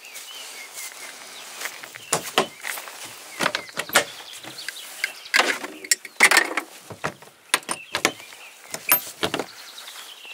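A series of irregular knocks, clicks and short scrapes, loudest and busiest around the middle, with no engine running.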